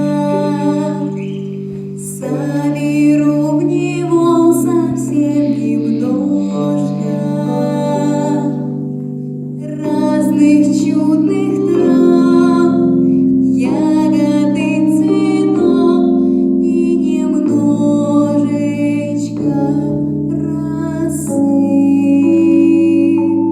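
A vocal performance: singing over an accompaniment of held chords that change every couple of seconds, with short gaps between the sung phrases.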